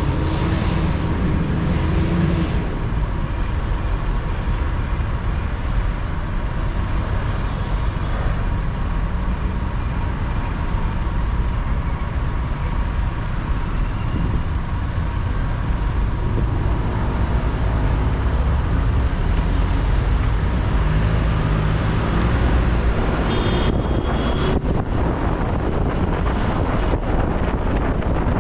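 Steady rumble of a car driving through city traffic: engine and road noise, heaviest in the low end.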